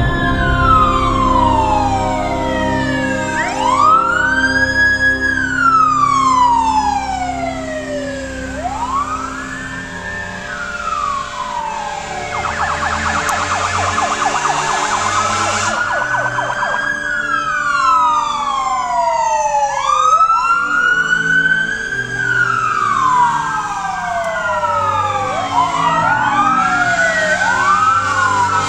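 Fire apparatus sirens wailing, rising and falling in long sweeps. For a few seconds around the middle one switches to a fast yelp, and in the last third two sirens wail at once, out of step with each other.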